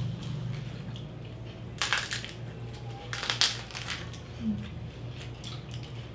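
Crunching of crispy lechon (whole roast pig) skin being torn apart and eaten: two loud crunches, about 2 s and 3.5 s in, with smaller crackles between.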